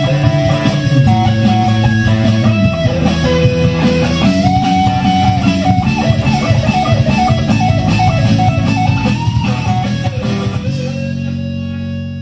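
Electric guitar from a Stratocaster-style guitar playing a lead melody with pitch bends over a backing of steady bass notes and regular percussive ticks. It ends on a held chord that rings on from near the end.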